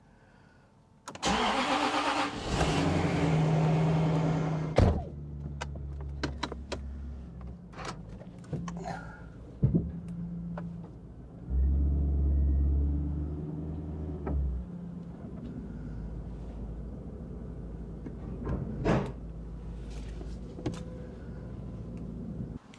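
A Jaguar XK8's V8 engine cranks and starts about a second in, then settles into a steady idle. Its revs rise briefly about halfway through. A few clicks and knocks sound over the running engine.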